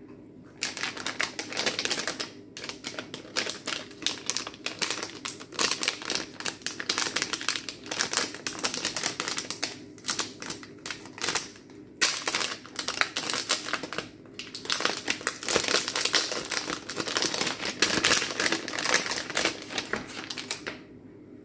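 Clear plastic bag crinkling as hands open it and pull out a coil of wire fairy lights: dense crackling rustles in long runs, with short pauses about 2, 12 and 14 seconds in.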